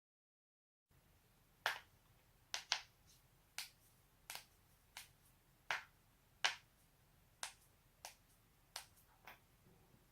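Neck joints cracking: a string of about a dozen sharp pops, starting about a second in, irregularly spaced half a second to a second apart, some coming in quick pairs.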